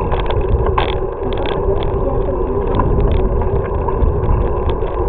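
Wind buffeting the microphone over the steady rumble of a bicycle rolling along, with frequent light rattling clicks.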